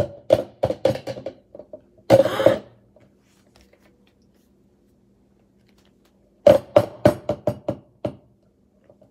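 Ice cream being knocked off a scoop against the rim of a plastic Magic Bullet blender cup: a quick series of sharp knocks, a short noisy burst about two seconds in, then another quick run of about eight knocks near the end.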